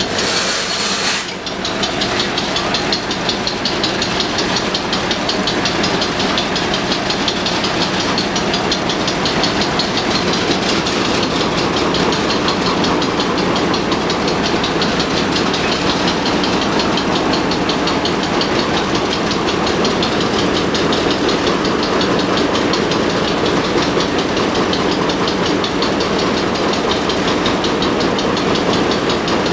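Large stationary diesel engine running with a fast, even beat. A brief hiss comes in the first second.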